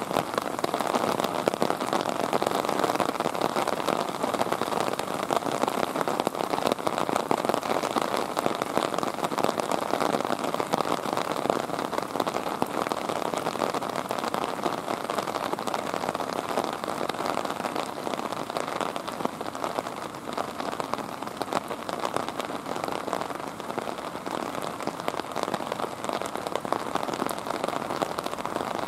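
Rain falling steadily: a dense, even patter of drops with no let-up.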